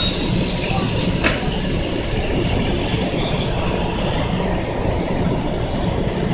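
Kintetsu limited express train standing at the platform, its equipment giving a steady hum. About a second in there is a sharp click as a sliding passenger door is opened.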